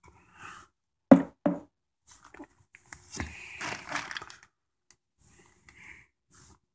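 Two dull knocks about a second apart: a rusty iron railroad spike set down on a carpeted floor. A stretch of rustling handling noise follows.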